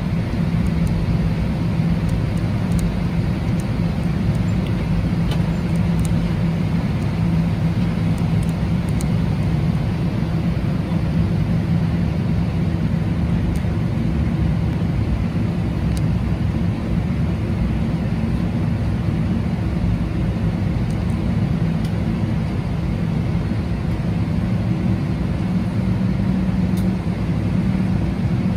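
Cabin noise of a Boeing 777-200ER taxiing on its GE90 engines at low thrust: a steady low hum and rumble.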